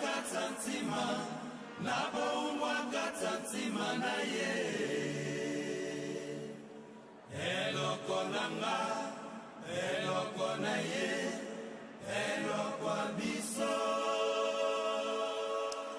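A group of singers' voices, unaccompanied, singing a chant-like song in several long held phrases with brief pauses between them.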